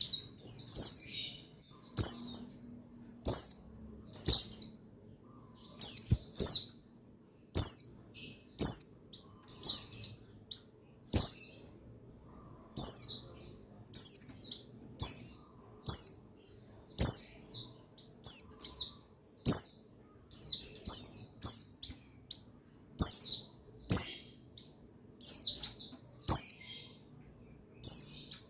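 Buxtoni white-eye (pleci) chirping: short, high, falling calls in quick clusters, about one cluster a second, with brief gaps between.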